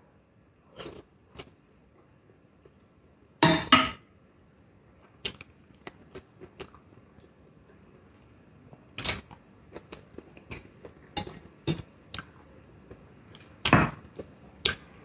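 A person chewing steamed vegetables, with soft wet mouth clicks and smacks, broken by a few sharp louder clacks about three and a half seconds in, at about nine seconds and near the end.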